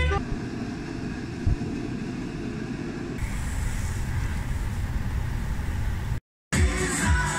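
Steady low rumbling noise with no clear tone. About three seconds in it turns hissier, and it cuts out briefly near the end.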